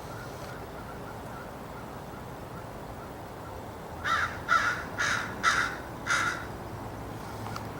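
Crow cawing five times in quick succession, about half a second apart, starting about four seconds in.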